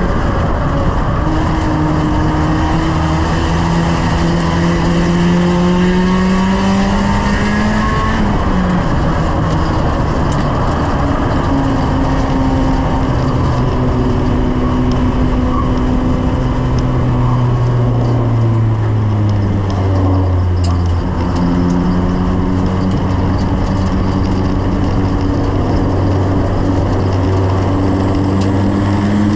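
1-litre stock car engine heard from inside the stripped-out race car, revving up hard with a sudden drop in pitch about eight seconds in at a gear change, then holding before easing down to a lower, steadier note over the last stretch.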